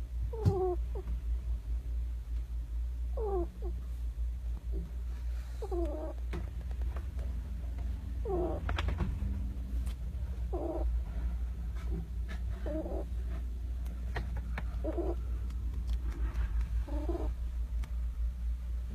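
Pet hedgehog snoring in deep sleep: a short, squeaky, whistling snore with each breath, roughly every two to three seconds, often falling in pitch.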